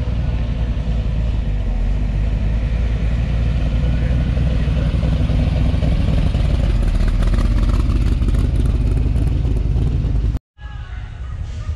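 Shelby Cobra-style roadster's V8 running through its side-exit exhaust pipes as it drives slowly past, loudest as it goes by about six seconds in. The sound cuts off abruptly near the end.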